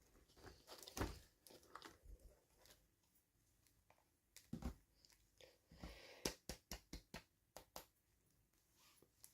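Faint handling of toy packaging: scattered soft crinkles and clicks, with a quick run of about six sharp clicks past the middle.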